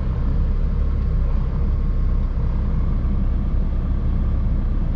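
Semi truck's diesel engine idling, a steady low rumble heard from inside the cab.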